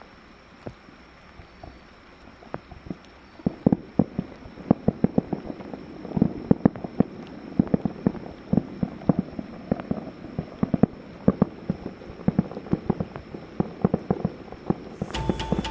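Fireworks bursting in a rapid barrage: a few scattered bangs, then dense, irregular sharp reports several times a second that build into near-continuous crackling. Music comes in near the end.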